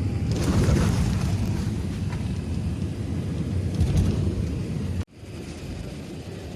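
Airbus A380 heard from inside the cabin during landing: a loud low rumble with a surge of roaring noise about half a second in. It cuts off suddenly about five seconds in, leaving a quieter steady cabin rumble.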